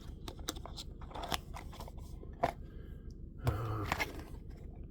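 Packaging being handled and torn open while a pocket knife is unwrapped: crunching and a scatter of sharp clicks, with a louder rustle about three and a half seconds in.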